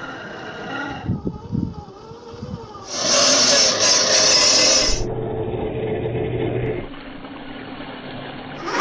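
Cut-together sounds of scale RC 4x4 trucks on rough ground: grinding and scraping with a motor hum, changing abruptly every second or two, with a loud hissing rush lasting about two seconds from three seconds in.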